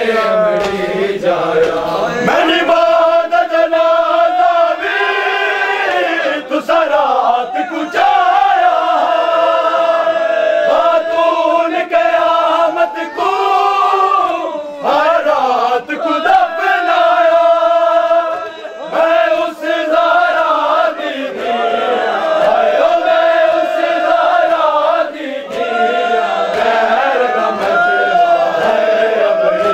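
Group of men chanting a noha, a Shia Muharram mourning lament, loudly together behind a lead reciter. The sung lines run on with short breaks between phrases.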